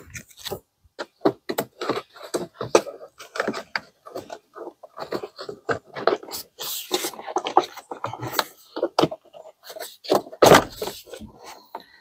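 BMW X5's plastic cowling panel being worked loose and lifted out of the engine bay: an irregular run of plastic clicks, knocks and scrapes, with a louder knock near the end.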